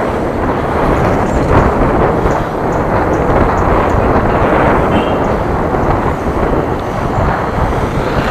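Steady rushing noise of riding along a road: wind buffeting the action camera's microphone, mixed with road and traffic noise.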